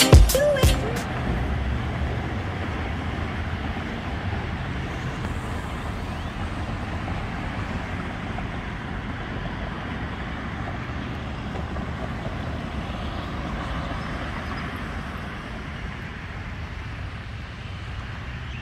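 Steady road traffic noise from cars on the road beside the grass, following the end of a short stretch of intro music about a second in.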